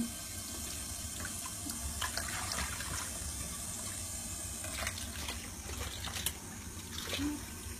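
Tap water running steadily into a sink, with a few short, sharper splashy sounds over it.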